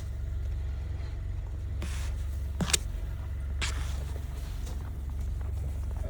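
Snow being scraped off a car with a snow scraper: two sharp scrapes about a third and just over halfway through. Under them is the steady low rumble of the car's idling engine.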